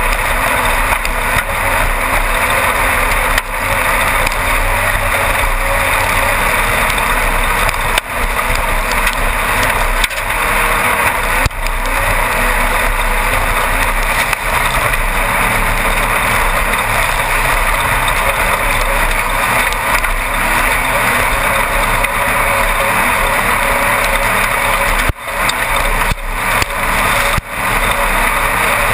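In-car sound of a Class 1-1600 desert race car running at speed: its 1600 cc air-cooled VW engine under wind and chassis noise, a steady loud din with a few brief dips every few seconds.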